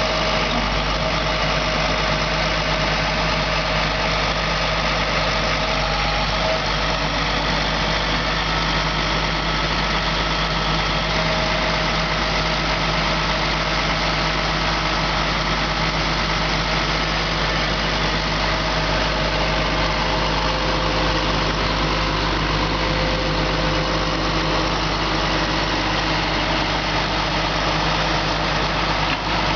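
International 4300 rollback's diesel engine running steadily at idle while it powers the hydraulic bed, which tilts up and slides back. A constant hum with a few faint steady tones above it.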